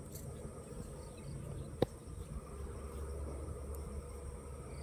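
A single sharp shot from an air rifle firing a fishing harpoon, about two seconds in, over steady chirring of insects.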